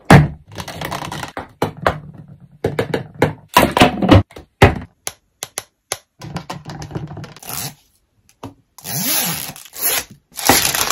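Clear plastic blister packaging being pulled off a cardboard backing card and handled: irregular crackling, tearing and scraping, with knocks as the plastic action figures are taken out. The longest stretches of crackling come near the end.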